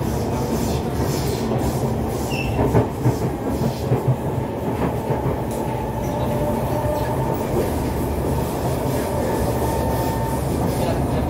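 Interior of a moving Kawasaki C151 metro train car: a steady low rumble of wheels on rail with running-gear noise. A few sharp clacks come about three seconds in, and a thin steady whine rises out of the rumble in the second half.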